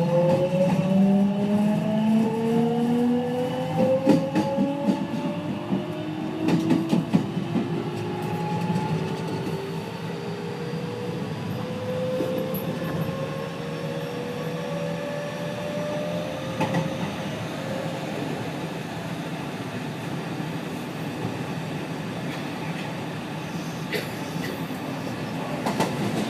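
JR West 207 series 1000-subseries electric train's traction inverter whining as the train accelerates, several tones climbing in pitch together for the first 18 seconds or so. One of the car's inverter sets is out of step in its modulation and sounds against the normal one, giving an unusual chord. After that comes steady running noise, with a few clicks of the wheels over rail joints.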